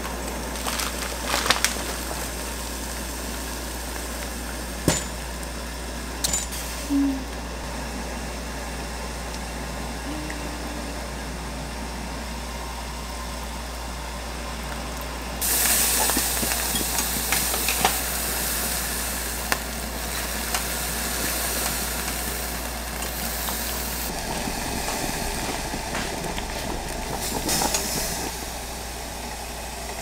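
Kitchen work at a pot of water on the boil: a steady low hum with a few short knocks, then about halfway a loud hiss of rushing water starts suddenly and lasts about eight seconds, with a shorter hiss near the end.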